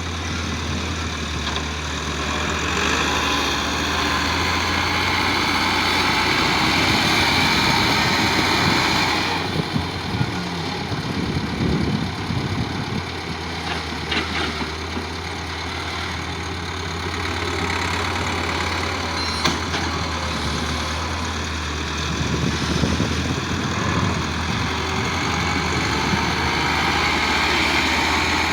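Heavy diesel machinery engine running steadily, likely an excavator or tractor during mud loading, with the sound swelling and easing a little and a couple of brief clicks.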